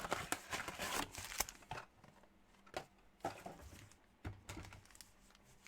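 A quick run of light clicks and taps from hands working at a table, thinning out to a few separate clicks.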